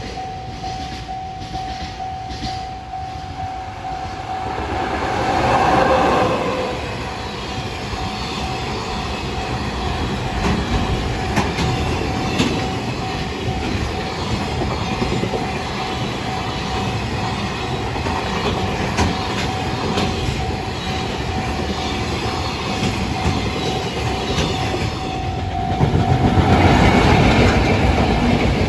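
Freight trains passing a level crossing, wheels rumbling and clattering over the rail joints, with the crossing alarm sounding steadily throughout. The sound grows loudest near the end as an electric locomotive hauling tank wagons passes on the near track.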